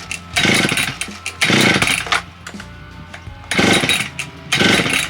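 Chainsaw being pull-started four times, each pull cranking the engine briefly without it catching; the owner puts the failure down to no spark.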